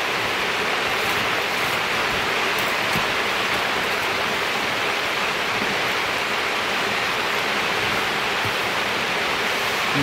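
Steady, unbroken rushing of water, holding an even level throughout.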